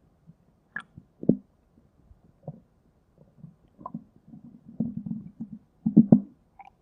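Stomach-growl sound effect: a string of short, irregular gurgles and squelches, with a brief higher squeak about a second in and the two loudest gurgles close together near the end.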